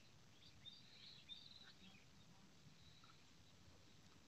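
Near silence: faint outdoor background, with a few faint high chirps about a second in.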